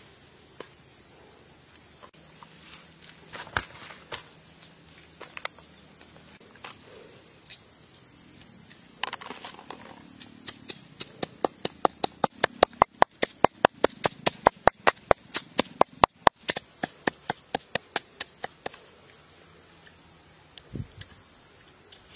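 A wooden pestle pounding in a small mortar bowl: a few scattered knocks, then a long run of quick, regular strikes, about four a second, for several seconds in the middle. A steady high insect buzz runs underneath.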